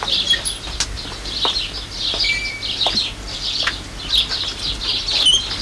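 Many small birds chirping and twittering without a break, with a few sharp clicks scattered through it.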